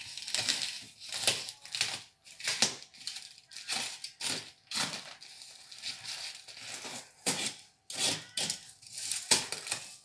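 Packing tape being ripped off a cardboard shipping box and the cardboard flaps scraped and torn open: a run of short, irregular rips and scrapes with brief pauses between.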